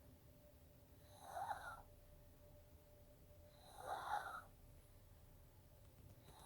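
A sleeping pet snoring: two snores about two and a half seconds apart, each lasting under a second.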